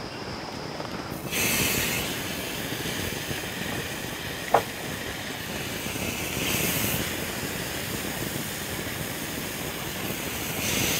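Marinated chicken sizzling on a hot cast grill pan, the sizzle flaring up as pieces are laid on, about a second in, again about six and a half seconds in and near the end. A single sharp clink about four and a half seconds in.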